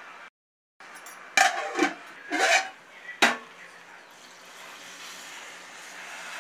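A metal spoon scraping and knocking against an aluminium pressure cooker four times while stirring rice, then a steady stream of water pouring into the pot from about two-thirds of the way in.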